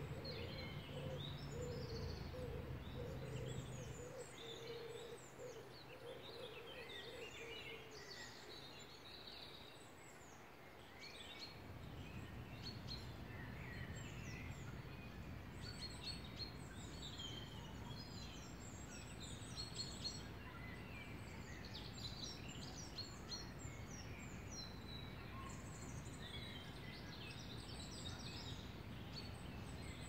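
Several small songbirds singing and chirping over one another in a spring woodland chorus, over a steady low background rumble.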